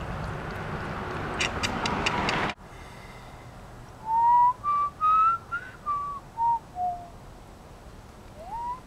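A person whistling a short tune of about seven clear notes that climb and then fall, with one more rising whistle near the end. Before it, a rushing noise with a few sharp clicks cuts off abruptly.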